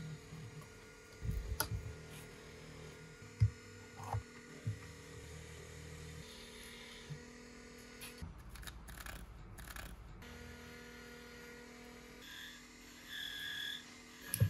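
A small electric motor hums steadily, with a few light knocks from handling. The hum drops out for about two seconds in the middle, where a short scratchy noise is heard, then starts again.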